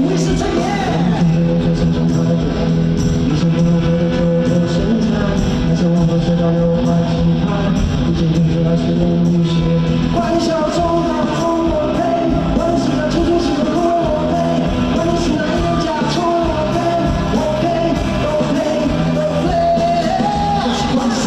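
Live rock band music with a singer's voice carrying a sustained melody over guitar and drums.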